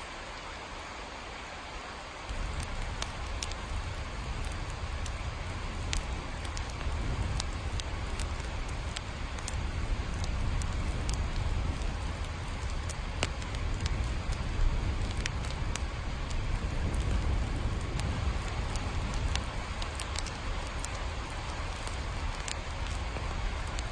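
Steady rain with many scattered drop ticks. About two seconds in, a low rumble joins and the rain grows louder.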